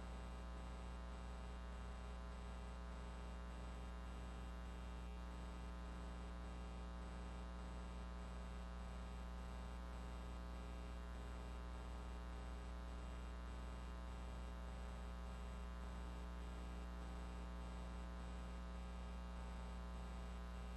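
Steady electrical hum with a faint hiss on the broadcast audio line, unchanging throughout.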